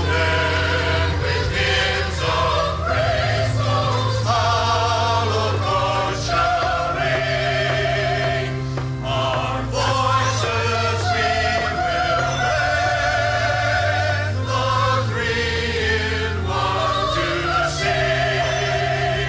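Background music: a choir singing a slow sacred piece with vibrato over sustained low bass notes.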